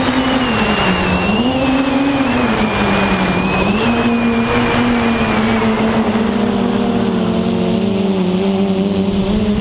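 Brushless motors and 10x5 propellers of a QAV540G quadcopter, heard from its onboard camera: a steady hum whose pitch rises and falls with throttle a few times, then holds fairly even, over rushing wind noise.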